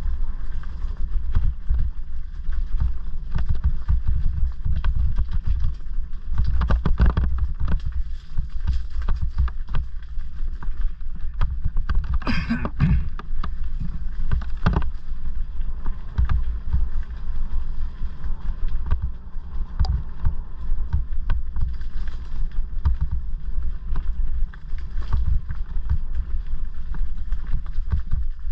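Rumble of wind and riding buffeting the helmet microphone, with the rattle and knocks of a Bafang mid-drive Orange Gyro electric mountain bike riding over a loose-stone track. A brief louder noise comes about twelve seconds in.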